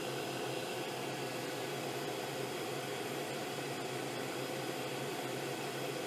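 Lathe running with buffing wheels spinning on it while pen blanks are buffed: a steady, even hum and hiss.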